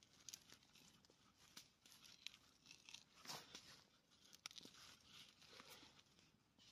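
Faint, scattered crunching and creaking of a hand auger bit boring into a wooden log, turned by a stick used as a handle.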